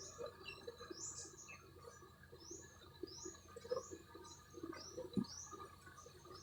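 A small bird chirping faintly, a steady series of short, high, rising notes about two a second.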